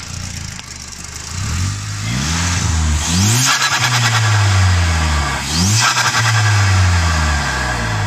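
Volkswagen Golf GTI's 2.0-litre turbocharged four-cylinder, breathing through an open cone air filter, revved twice: each time the revs climb with a rising turbo whistle, then fall away with a chattering turbo flutter, the "stututu", as the throttle closes.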